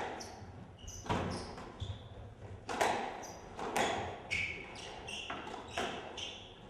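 Squash rally: the ball cracks sharply off rackets and the court walls about once a second, echoing in the hall, with short high squeaks of court shoes on the wooden floor between strikes.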